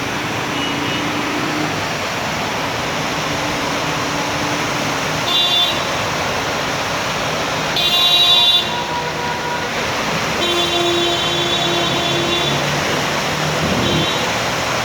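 Street traffic: a steady noise of vehicles on the road, with several vehicle horns honking. The loudest horn blast comes about eight seconds in, and a longer one a couple of seconds later.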